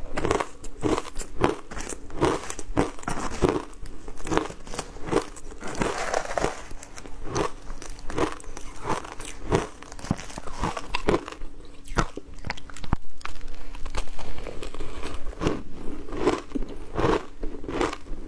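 Crushed ice dusted with matcha powder being bitten and chewed, close to a clip-on microphone: a steady run of crisp crunches, roughly two a second.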